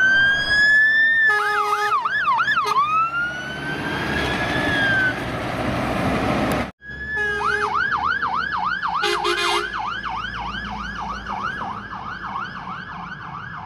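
Fire engine sirens: a wail rises, breaks into a few quick yelps with a steady horn-like tone, then slowly falls under the rush of the passing truck. After a sudden cut, a fast yelp siren sweeps about three times a second, with a brief steady horn blast near the middle.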